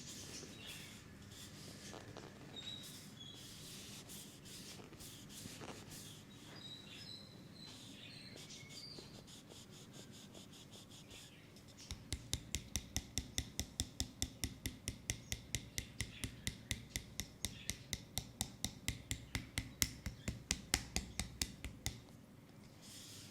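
Hands rubbing and sliding over oiled skin during a leg massage. About halfway through, a quick, even run of slaps on the leg begins, about four a second, and stops a second or so before the end.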